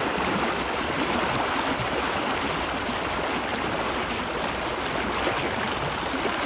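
Shallow river current rushing and splashing close to the microphone: a steady, even wash of flowing water.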